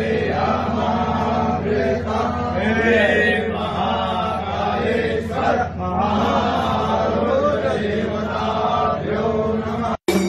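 Several voices chanting a Hindu mantra together over a steady low hum. The chant cuts off suddenly near the end.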